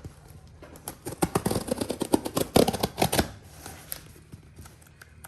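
Cardboard packaging being handled and worked open: a quick run of rustles, scrapes and small clicks for about two seconds, then quieter handling.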